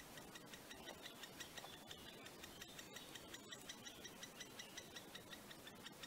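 Great spotted woodpecker nestling at the nest hole giving its begging call: a fast, even run of short, high calls, about five a second, faint.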